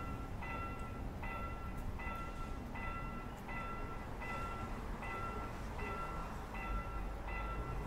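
Railway level-crossing warning bell ringing in a steady repeating ding, about every three-quarters of a second, the signal that a train is approaching and the barriers are down. A low rumble runs underneath.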